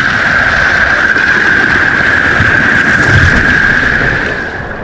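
Water slide's water flow rushing close to the camera, a loud steady hiss that eases off near the end.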